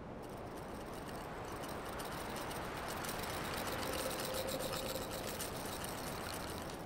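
Foley rolling sound of a glass ball on rough stone paving: a steady gritty rumble with fine crackling that swells toward the middle and eases off again.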